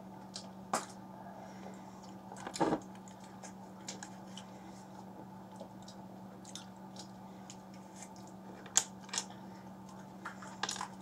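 Quiet chewing with scattered small clicks, crackles and rustles of sweets and wrappers being handled, with a louder rustle about two and a half seconds in, over a steady low hum.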